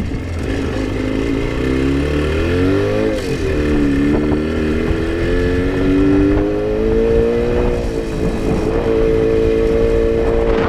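Jawa 350 two-stroke twin motorcycle engine pulling under throttle. Its note climbs, drops sharply about three seconds in, climbs again slowly and then holds steady near the end. The engine is running lean and short of power, as the owner says.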